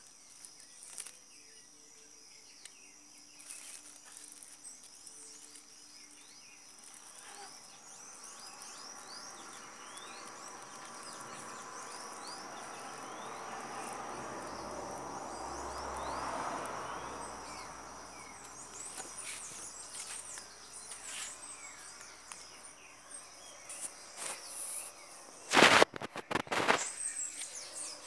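Steady high-pitched insect drone with birds chirping over it. A broad noise swells to its loudest about halfway through and fades away, and a burst of loud knocks from the camera being handled comes near the end.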